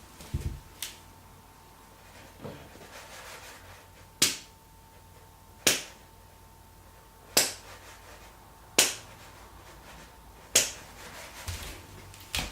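Five sharp clicks of the rocker switches on the back of a five-bulb softbox light, flicked one after another about every second and a half.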